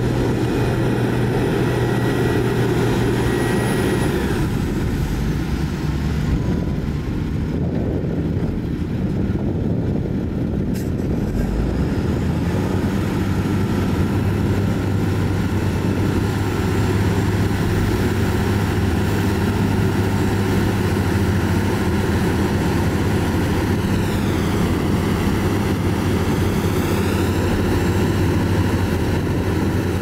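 Heavy dump truck's diesel engine running steadily, a low constant drone, with a faint high whine that bends up and down for a few seconds near the end.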